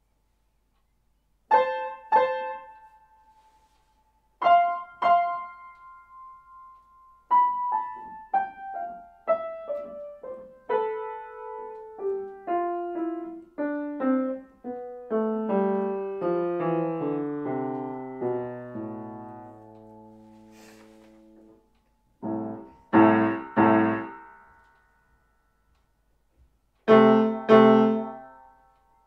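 Grand piano played solo. Two pairs of high notes come first, then a long run of notes stepping steadily down the keyboard. It ends with three loud chords and then two more near the end.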